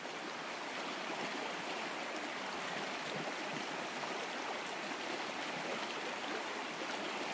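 A small trout stream running over a stony bed: a steady, even rush of flowing water.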